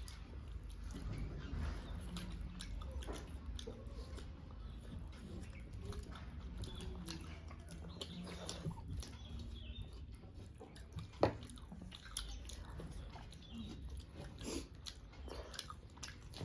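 A person eating rice and curry, with soft chewing and small wet mouth and hand clicks at an irregular pace. A sharper click comes about eleven seconds in.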